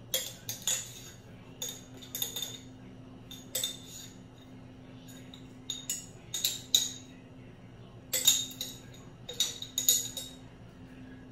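Metal spoon scraping and clinking against the inside of a glass jar, digging out the last of a thick jerk seasoning paste. The scrapes and clinks come in short, irregular bursts every second or so, over a faint steady hum.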